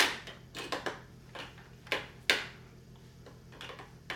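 Irregular sharp plastic clacks and taps, about ten of them, as a baby slaps and bangs the toys on a baby walker's plastic activity tray.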